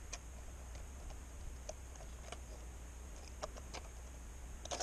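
A few faint, scattered clicks and crinkles from an empty plastic soda bottle being turned over in the hand, over a low steady hum.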